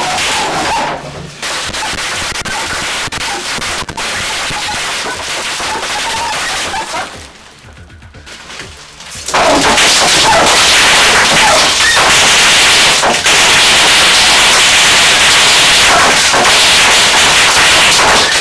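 Bubble wrap bursting in a rapid stream of loud bangs, fed through a homemade wooden bubble-wrap 'machine gun'. The popping almost stops about seven seconds in, then comes back louder about two seconds later.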